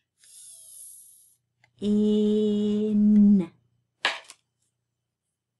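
A woman's voice drawing out the sounds of the word "fin" one by one. First comes a long "fff" hiss. After a short pause she holds a stretched "iiin" at one steady pitch for over a second, and then a brief breath.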